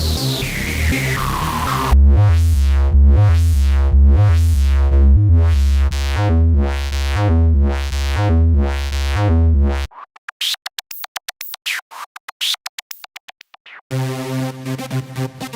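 A series of electronic synthesizer samples: a falling pitch sweep over a bass, then a pulsing synth bass with a filter sweeping open and shut about once a second, then about four seconds of rapid stuttering, chopped high sounds with no bass, ending on a sustained synth chord over a bass.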